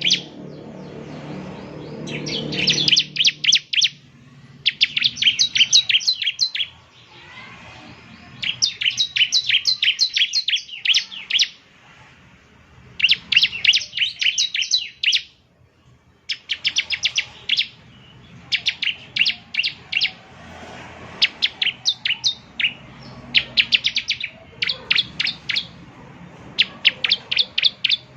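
Bar-winged prinia (ciblek) singing: repeated bouts of rapid, sharp, high chips, each bout lasting one to three seconds with short pauses between.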